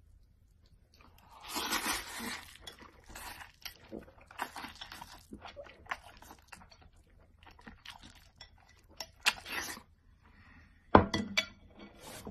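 Noodles being slurped and chewed, with chopsticks clicking against the bowl in short irregular bursts. Near the end comes one sharp, loud knock with a brief ring.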